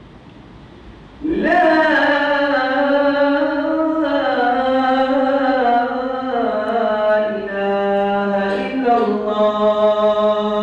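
Muezzin's voice chanting the adhan, the Islamic call to prayer. About a second in he begins one long, ornamented phrase, its pitch stepping down overall.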